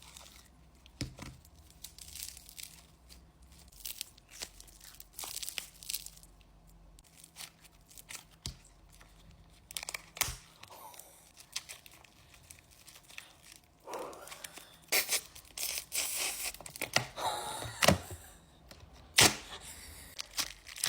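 Irregular crinkling and tearing from a homemade slime-filled squishy being handled, with clusters of louder crackles in the second half.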